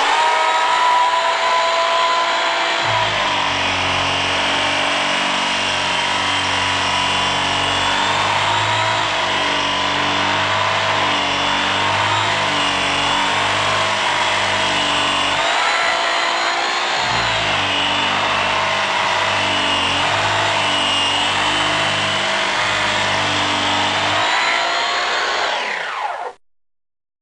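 A loud, harsh, unpleasant noise: a steady whine of several tones that waver in pitch together, over a low pulsing layer, cutting off abruptly near the end.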